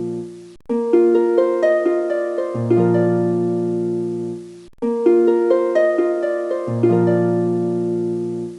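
Background music: a harp-like plucked melody over sustained low notes, repeating a short phrase, with brief breaks about half a second and four and a half seconds in.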